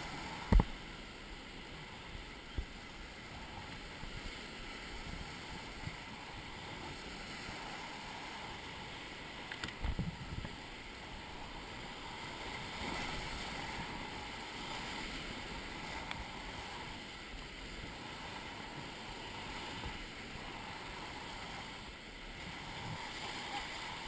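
River water rushing steadily around a raft, with a sharp thump just after half a second in and a short cluster of knocks about ten seconds in.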